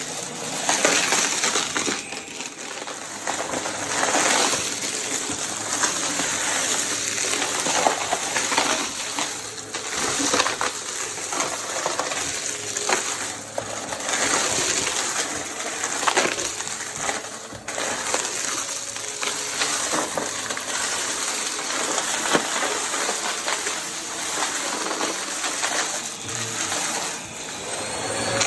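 Vacuum cleaner running, pushed back and forth quickly so its sound swells and dips every couple of seconds. A steady hiss is peppered with many small clicks and rattles.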